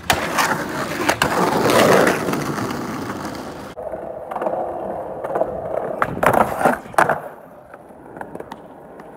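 Skateboard landing hard on concrete, followed by a loud roll of urethane wheels. After an abrupt change, wheels roll more quietly, then several sharp clacks of the board striking a wooden picnic table and landing come about two-thirds of the way in, before the rolling fades.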